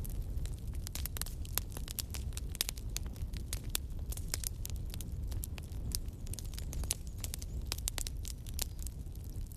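Wood fire crackling in a fireplace: many irregular sharp pops and snaps over a steady low rumble of the burning fire.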